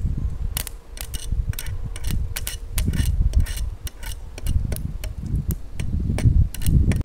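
A stick welding rod struck and scratched against a steel pipe, powered by a single 12-volt car battery: irregular crackling and snapping sparks in short spurts rather than a steady arc. At this very low voltage the arc will not hold.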